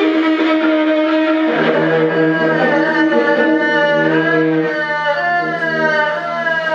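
Slow improvised music: a bowed string instrument holds notes and slides between pitches over held tones, and a low steady drone comes in about a second and a half in.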